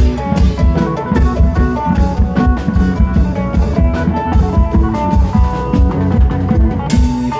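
Isan klong yao long-drum band music played loud through an amplified sound system: a steady pounding drum beat under a plucked string melody.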